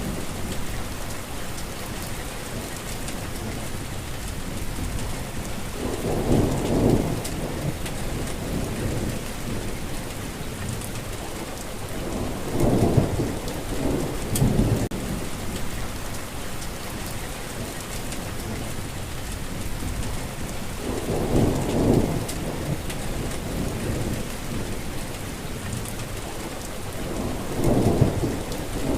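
Steady rainfall, an even hiss, with several low rolls of thunder rising and fading every few seconds.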